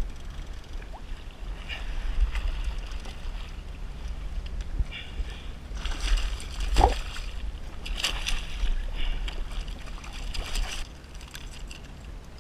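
Water splashing beside a kayak as a hooked striped bass is brought alongside and lifted out by hand, with a few splashy bursts in the second half over a steady rumble of wind on the microphone.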